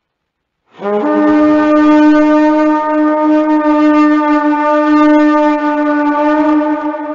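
A horn blown in one long held note, starting about a second in with a brief lower note that steps up to the main pitch.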